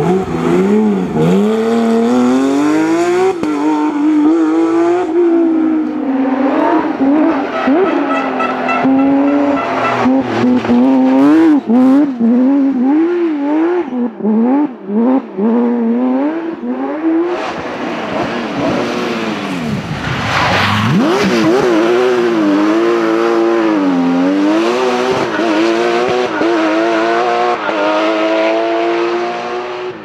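Porsche 911 GT3 rally cars' naturally aspirated flat-six engines, loud and at high revs, climbing and falling in pitch again and again as the drivers accelerate, shift and brake, with brief drops in sound in the middle.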